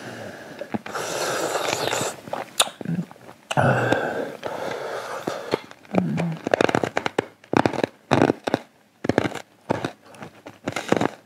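A man breathing hard through pursed lips against the burn of extreme sour candy: two long blowing exhalations, each starting with a short low groan, then a run of quick, sharp breaths.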